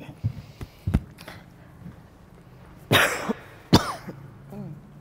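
A person coughing twice in quick succession about three seconds in, after a few light knocks in the first second.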